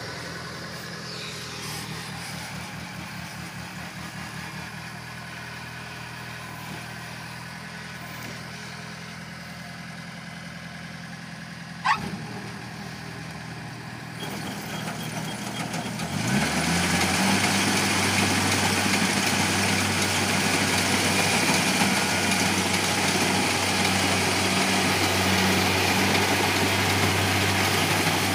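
Kubota DC-70G combine harvester's diesel engine running steadily while the machine cuts rice, with a single sharp knock about twelve seconds in. About four seconds later the engine revs up and the machine gets much louder, a busy hiss over the engine drone.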